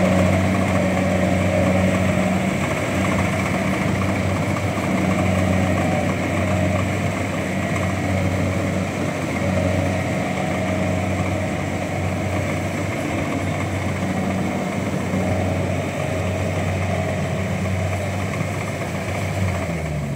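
Engine of a rice harvesting machine running steadily at an even speed.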